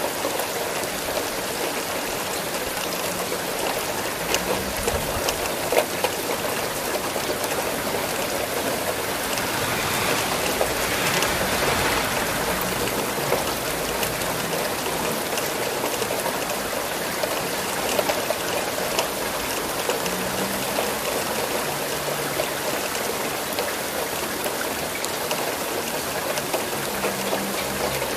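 Steady rain falling, an even hiss with scattered louder individual drops; it swells slightly for a few seconds about ten seconds in.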